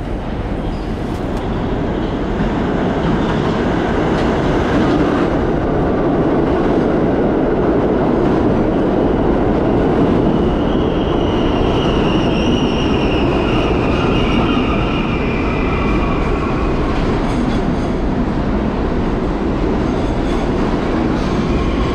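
A 1964 Budd R-32 subway train arriving at the station: a steady rumble of the cars on the rails that grows louder over the first few seconds. A high squeal from the train runs for several seconds in the middle.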